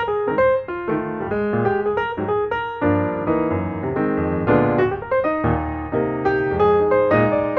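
Piano music, a steady stream of notes and chords played at an even pace.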